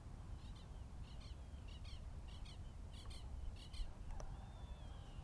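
A bird calling over and over in short, high, paired notes, about six pairs roughly two-thirds of a second apart, then a thin falling whistle about four seconds in. A steady low rumble lies underneath.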